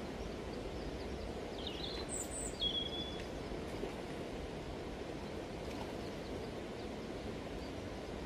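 Steady rush of river water flowing over stones, with a few short bird chirps about two to three seconds in.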